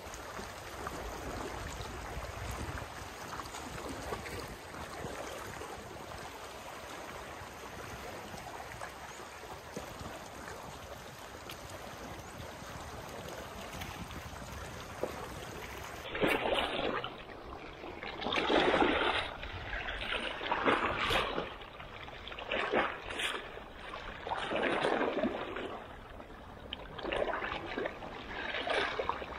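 Sea water: a steady wash of water, then from about halfway irregular splashes of waves coming every second or two.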